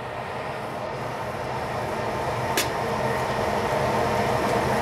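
Steady stovetop cooking noise from a pan of bacon, onion, peppers and diced tomatoes, growing gradually louder, with a single sharp click about two and a half seconds in.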